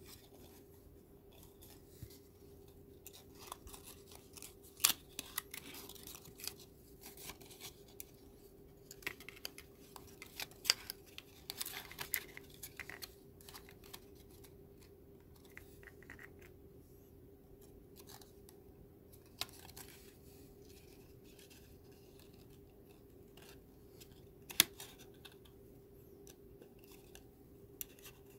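Thin Kent paper strips being bent and slotted together by hand: paper rustling and scraping, with scattered small clicks and a few sharper snaps about 5, 11 and 25 seconds in.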